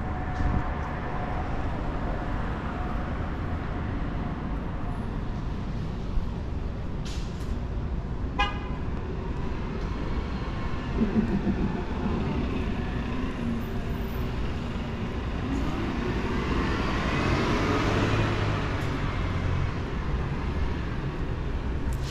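Road traffic on a town street: a steady rumble of passing cars, with one vehicle passing close, swelling to its loudest about eighteen seconds in and then fading.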